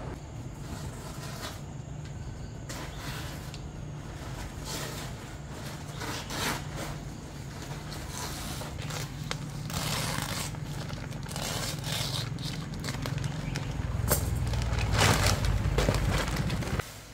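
Woven plastic tarpaulin rustling and crackling in irregular bursts as it is unfolded and handled, louder toward the end, over a steady low hum.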